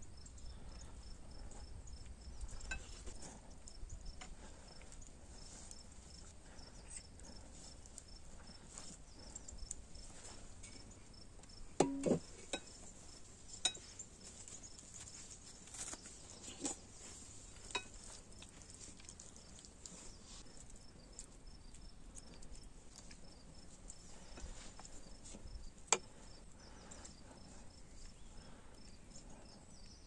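Insects chirping steadily in a high, regular pulse, with scattered light clicks and taps of crockery and spoons during a meal; a louder knock about twelve seconds in and a sharp tap near the end.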